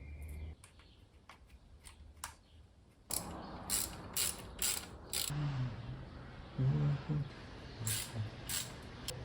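Mechanical clicking and ratcheting from hand tools working on metal parts. Scattered clicks at first, then from about three seconds in a steadier noise with repeated clicks and a low hum.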